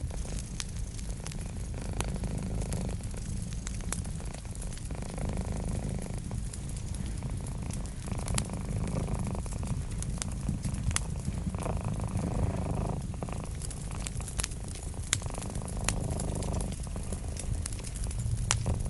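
A cat purring steadily in a low rumble, with a wood fire crackling in sharp, irregular pops over it.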